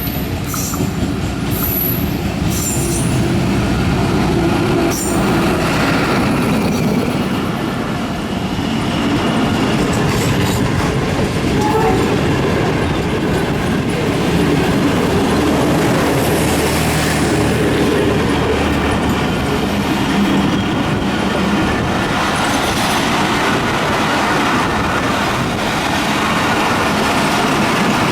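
Passenger train coaches rolling into a station, with a steady rumble and wheels clattering over the rail joints. Short, high wheel squeals come in the first few seconds.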